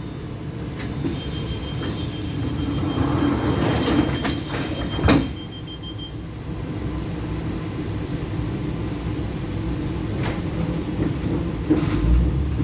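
ЭП2Д electric multiple unit running, heard from inside a passenger car: a steady low rumble with a few sharp clicks, the loudest about five seconds in, and a thin high tone over the first several seconds.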